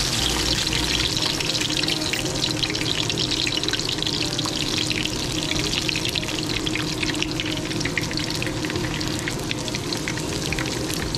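Garlic cloves sizzling in hot oil in a frying pan: a dense crackling hiss of tiny pops, strongest at first and gradually easing.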